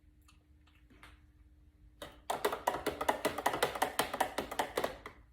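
A metal spoon stirring juice in a container, clinking rapidly against its sides in a quick run of sharp clicks, several a second, that starts about two seconds in after a few faint taps.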